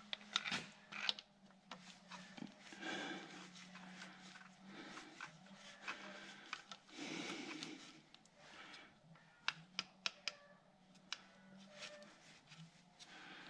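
Light metallic clicks and scraping from a long screwdriver and small metal parts being handled by hand, with a faint steady hum underneath. The clicks come in a cluster in the first second and again in a group near the end.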